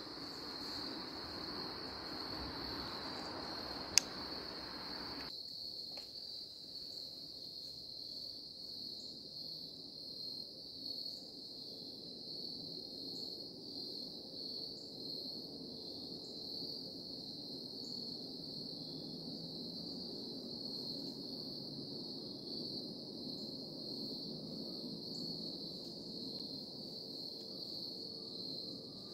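Steady high-pitched chorus of insects such as crickets, with a single sharp click about four seconds in.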